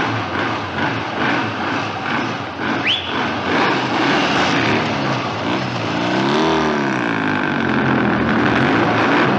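Motorcycle engine running hard under acceleration, its pitch swelling up and back down about two-thirds of the way through. A brief high rising squeal cuts in about three seconds in.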